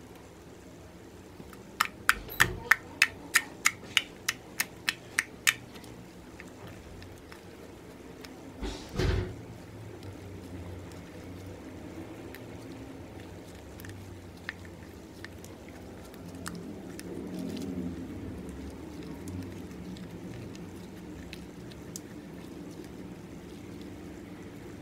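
Hands kneading and folding a soft slime. First comes a run of about a dozen sharp clicks, about three a second. About nine seconds in there is one louder squelch, and after it quieter squishing and scattered clicks.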